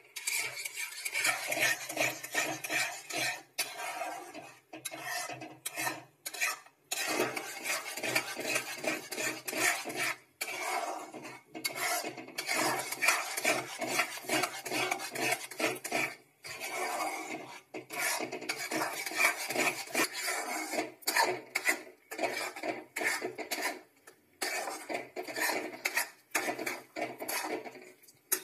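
Flat metal spatula scraping and stirring thick gram-flour and buttermilk batter around a metal kadai, in quick, irregular strokes with brief pauses. The batter is being cooked down until it thickens.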